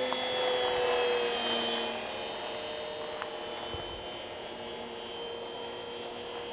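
Electric motor and propeller of a scratch-built RC model plane, a steady whine heard overhead. The whine is loudest about a second in and drops slightly in pitch as the plane passes, then holds steady and a little quieter.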